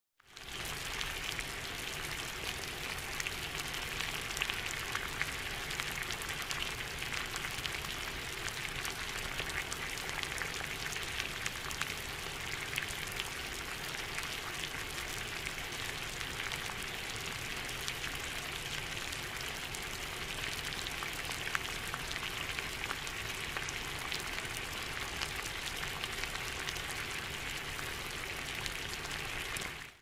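Water boiling: a steady bubbling hiss full of small quick pops, fading in at the start and stopping abruptly at the end.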